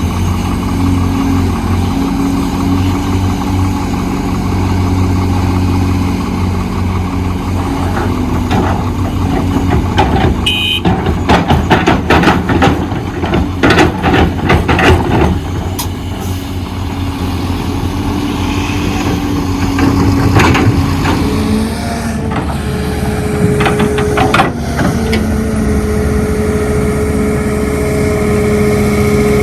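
Heavy diesel machinery of an excavator loading a dump truck, running steadily. For several seconds around the middle a run of loud knocks and clatter breaks in, and a steady higher tone joins the engine noise in the last few seconds.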